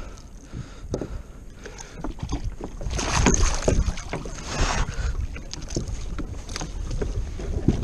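Water splashing as a gaffed dogtooth tuna thrashes at the side of a plastic fishing kayak, with scattered knocks against the hull. The splashing is loudest for a couple of seconds around the middle.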